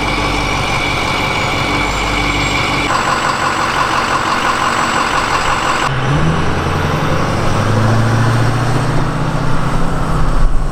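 Diesel school bus engine idling at the tailpipe just after starting. About six seconds in the sound changes: the engine pulls away, its pitch rising as it accelerates.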